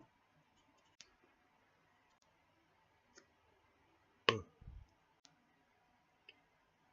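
A few faint, scattered clicks, with one sharper, louder click and a short low thud about four seconds in.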